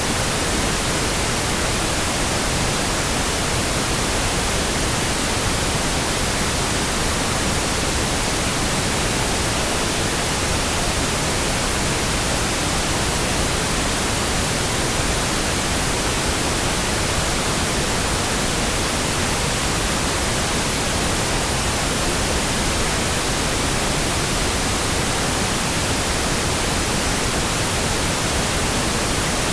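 Generated pink noise playing as a steady, even hiss with no changes.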